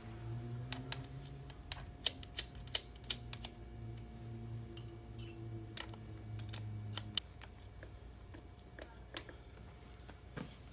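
Hand tools working the chain adjuster bolts on a motorcycle swingarm: a run of sharp metal clicks about two seconds in and a few more a little later. Under them a low steady hum stops about seven seconds in.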